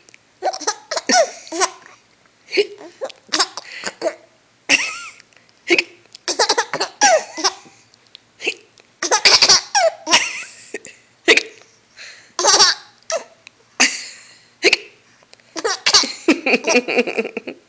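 A little girl laughing in many short bursts, with hiccups mixed in among the laughs.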